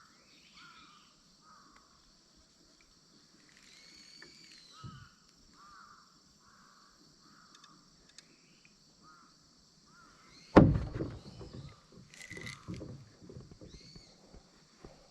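Outdoor ambience: a faint steady high hiss with short calls repeating about once or twice a second, then a sudden loud thump about ten seconds in, followed by a few seconds of rustling and knocking.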